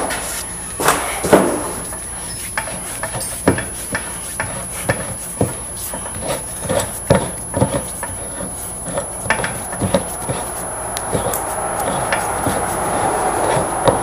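Irregular metal knocks and clinks of hand work on a double-acting hydraulic cylinder as its piston is worked out, with a scraping rub building over the last few seconds.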